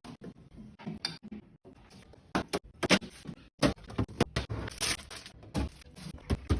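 Items being handled in a refrigerator during a clean-out: irregular clicks, knocks and scrapes of containers being picked up and set down, with short rustling passages between them.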